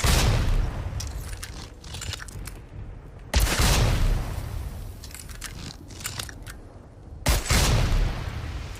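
Blast crossbow sound effect fired three times, about four seconds apart: each shot is a sudden loud blast that dies away over a second or so, with faint clicks between the shots.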